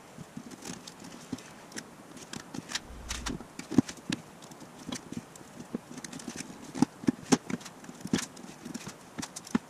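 Utility knife cutting a thin black sheet of gasket material on a steel workbench: irregular scraping strokes and clicks, with a few sharper knocks about four seconds in and again in the second half.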